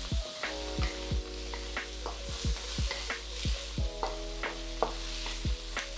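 Chopped aromatics stir-frying in hot oil in a wok: a steady sizzle, with a wooden spatula scraping and tossing them a few times a second.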